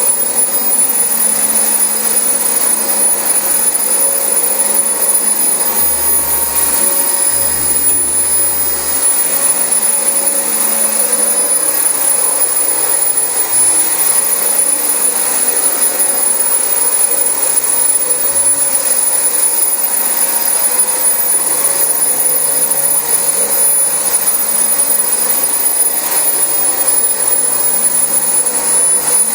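Dyson DC25 upright vacuum cleaner running steadily on carpet, with a constant high whine over the motor and airflow noise.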